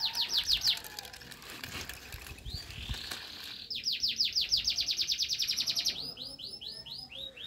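A bird singing: fast runs of repeated high chirps, one brief at the start and a longer one in the middle, turning into slower, falling notes near the end.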